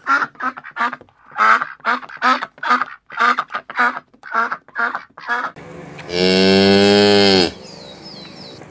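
A duck quacking in a rapid series of about a dozen short quacks. Then a cow gives one long moo of about a second and a half that drops in pitch at the end.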